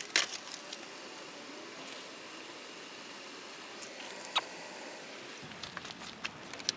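Steady hiss of rain and water rushing through a rain-gutter bell siphon that has just triggered and is draining fast. A few sharp clicks or taps stand out, the loudest just after the start, with others about four and a half seconds in and near the end.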